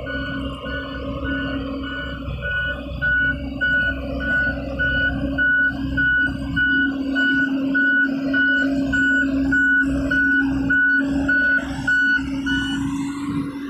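Reversing alarm beeping about twice a second over the steady running of a Sakai single-drum roller compactor's diesel engine; the beeps stop shortly before the end.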